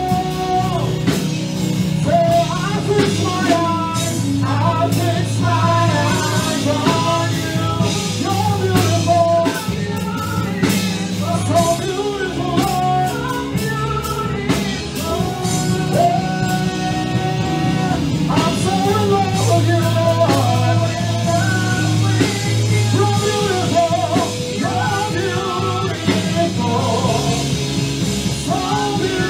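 Live praise and worship music: a singer with a keyboard and drums, over steady low notes.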